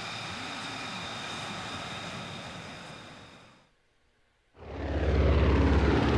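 F-16 fighter jet's engine running with a steady high whine as the jet rolls along the runway, fading out about three and a half seconds in. After a second of silence a much louder, low engine sound with a fast steady pulse starts and keeps building.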